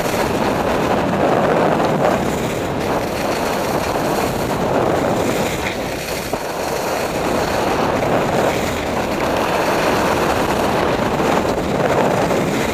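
Wind rushing over the camera microphone together with skis scraping over packed snow on a fast downhill run, the rush swelling and easing every couple of seconds.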